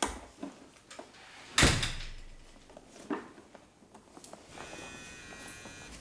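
A black leather handbag being rummaged through, with clicks and knocks and one loud thump about one and a half seconds in. Near the end a faint, steady electronic tone sounds from a mobile phone.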